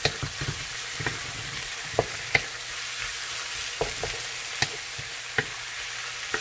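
Garlic, onions and tomatoes sautéing in hot canola oil with a steady sizzle, while they are stirred in the pan, the utensil knocking and scraping against it irregularly, about once or twice a second.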